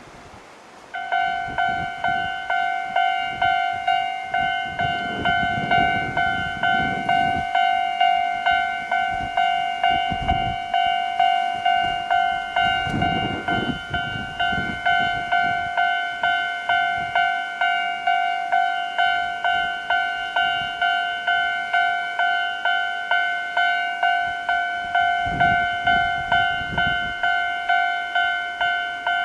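Japanese railway level-crossing alarm of the older electronic type sounding. It starts about a second in and rings on in a steady, even run of struck, decaying dings. Wind rumbles on the microphone underneath.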